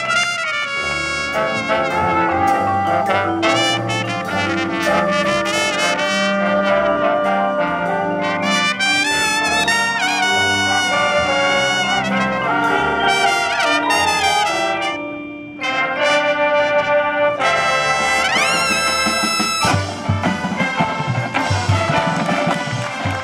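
Brass ensemble of trumpets and trombones playing sustained chords and moving lines, with a brief drop-out about fifteen seconds in and a rising rip in the high brass a few seconds later. Heavier low beats join near the end.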